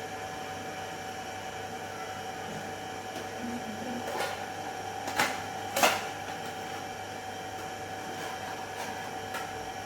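A steady hum of several fixed tones, with a few brief knocks or clicks from things being handled at about four, five and six seconds in, the last the loudest.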